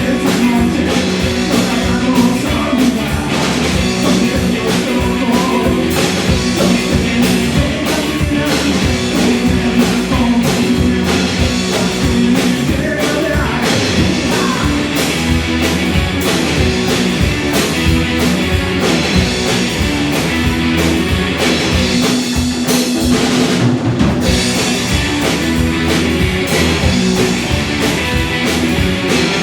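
Live rock and roll band playing: two electric guitars, bass guitar and drum kit, loud and steady, with a brief break about three-quarters of the way through.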